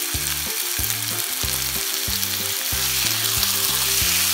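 Chicken thigh pieces sizzling in hot oil in a non-stick pan on high heat, a steady frying hiss, with a wooden spatula beginning to turn them near the end. Background music with a line of low notes plays under it.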